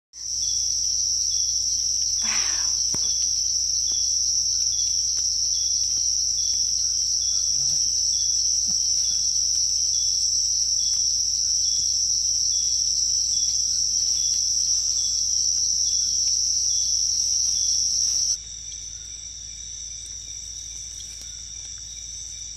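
Night insect chorus: a steady, loud, high-pitched trill with a faint chirp repeating under it about every three quarters of a second. About eighteen seconds in it cuts abruptly to a quieter chorus.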